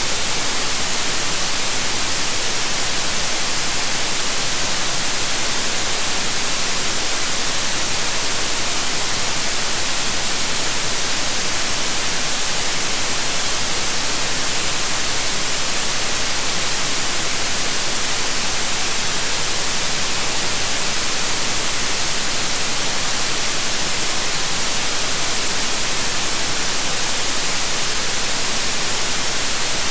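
Steady white noise: an even, unchanging hiss, bright and strong in the high frequencies.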